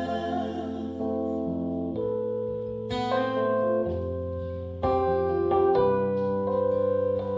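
Instrumental passage of a live acoustic song: acoustic guitar notes picked one after another and ringing out over held keyboard chords and a low sustained bass note, with no singing.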